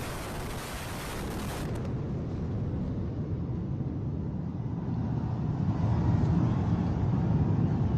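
Deep rumble of the twin towers' demolition heard from a distance, a dense low noise that swells about five seconds in. A high hiss over it stops abruptly about two seconds in.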